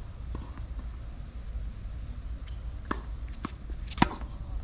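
Tennis ball struck by rackets and bouncing on the court: a few sharp knocks in the second half, the loudest about four seconds in, over a steady low rumble.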